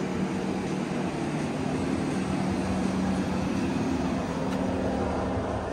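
A machine running steadily: an even rushing noise with a few steady low hum tones, no rhythm or change in pitch.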